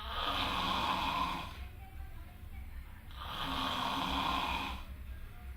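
Snoring: two long snores about three seconds apart, each lasting about a second and a half, over a low steady hum.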